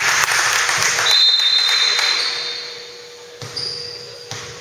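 Basketball gym sounds: a swell of crowd noise lasting about two and a half seconds with a long high-pitched squeak over it, then a couple of sharp knocks near the end, such as a bouncing ball.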